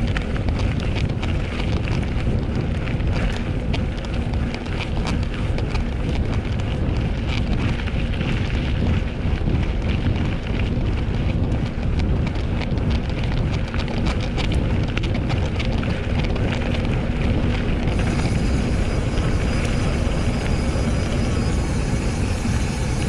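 Mountain-bike ride noise on a Scott Scale RC: wind buffets the microphone over the sound of tyres rolling on rough ground and the bike rattling constantly. About three-quarters of the way through, a faint steady high whine joins in.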